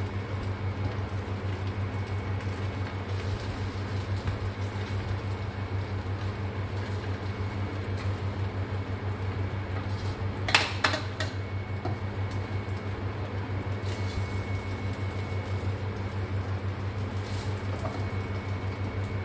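Spatula stirring and scraping sticky glutinous rice in a stainless steel wok, with a quick cluster of sharp clinks against the pan about halfway through. A steady low mechanical hum runs underneath.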